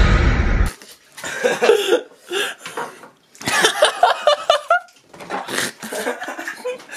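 A brief loud rushing noise at the start, then a person coughing, spluttering and making pained vocal noises in short bursts, reacting to a mouthful of Carolina Reaper chili sauce.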